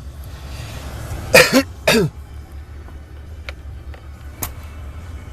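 A man coughs twice, sharply, about a second and a half in. A steady low hum runs underneath, and there is a single faint click near the end.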